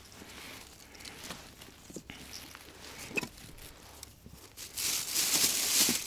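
Rustling and light clicks of foam duck decoys being rigged with cord and nut weights by hand, with a louder rustle lasting about a second near the end.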